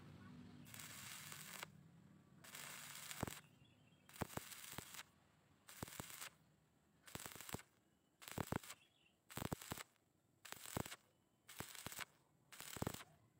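Stick-welding arc from a 2.0 mm 6013 electrode at 55 amps DCEP crackling and sputtering on thin steel tube. It comes in about a dozen short bursts, roughly one a second, as the arc is struck and broken again and again. This is the stitch, or intermittent-arc, technique used to keep from burning through thin metal.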